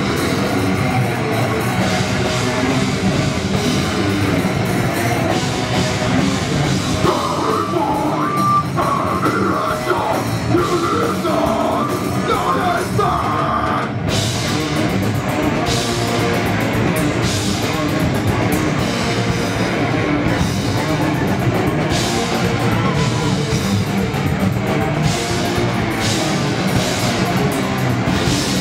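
Heavy metal band playing live: distorted electric guitars, bass and a drum kit, loud and dense throughout. About halfway through the riff changes and the drums come to the front.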